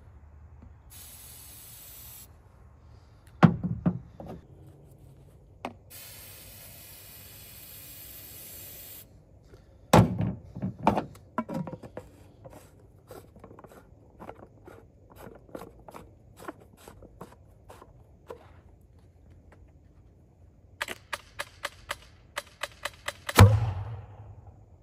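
Aerosol hairspray hissing into a PVC potato gun's chamber in two sprays, with knocks as the gun is handled and loaded. Near the end, a push-button grill igniter clicks about a dozen times in quick succession, then the gun goes off with a loud boom that rings briefly.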